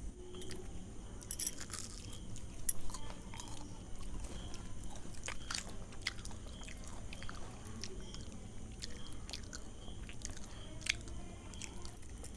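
Crisp fried jalebi being broken apart and bitten and chewed, in short scattered crunches, a few of them louder.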